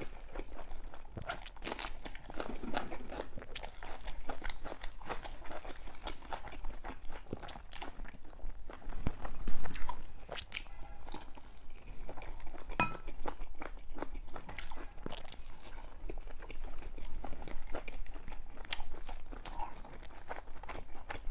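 A person eating close to the microphone: irregular crunchy bites and chewing, with one louder stretch about halfway through.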